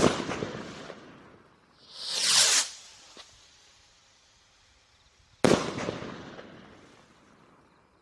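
Fireworks going off. A sharp bang echoes away, then a short rushing sound swells and stops abruptly, and about five and a half seconds in a second bang rings out and fades slowly.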